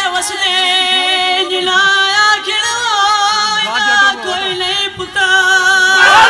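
A single voice singing a noha, a mourning lament, in long held notes that waver and bend. Just before the end the crowd breaks into a loud shout.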